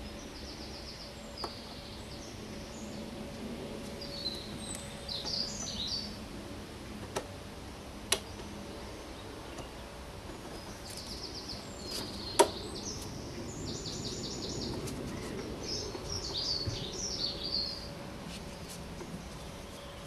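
Birds singing in the background in several short bouts of quick high chirps. A few sharp clicks of hand tools on metal are heard, the loudest about twelve seconds in, over a faint steady hum.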